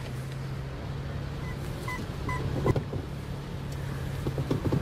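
Mini Cooper with its engine idling as a steady low hum. A few short electronic chime beeps sound around the middle, a sharp knock comes just before the three-second mark, and several clicks and knocks follow near the end.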